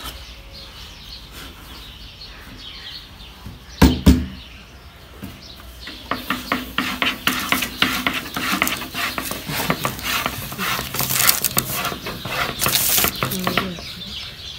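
Kitchenware being handled: a sharp double knock about four seconds in, then from about six seconds a long run of quick, light clinks and rattles.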